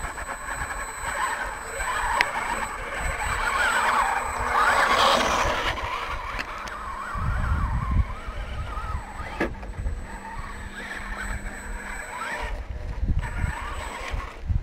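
Electric motor and gearbox of an RC scale crawler whining, rising and falling in pitch as the throttle is worked while it crawls over rock, loudest about a third of the way in.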